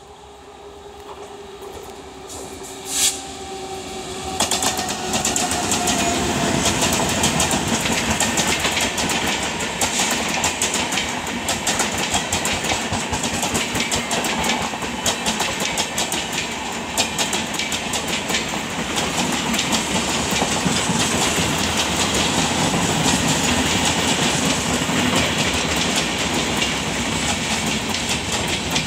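Punjab Mail express train passing at speed behind an electric locomotive. A faint whine falls in pitch as the locomotive approaches, with a single sharp clank about three seconds in. Then the passenger coaches run past with a loud, steady wheel rumble and rapid clickety-clack over the rail joints.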